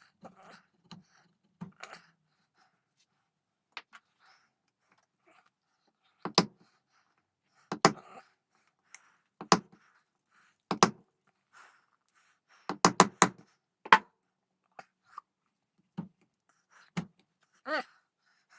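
Chisel being struck to cut the trigger inlet into a wooden gunstock: about ten sharp, ringing knocks from about six seconds in, one quick run of three close together, with faint paring scrapes before them.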